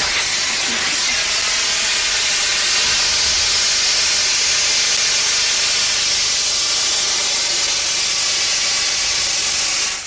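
Liquid carbon dioxide blasting out of a pipe from a cylinder's opened valve, a loud steady hiss as it flashes back to gas and chills the pipe enough to frost it. The hiss stops abruptly near the end as the valve is shut.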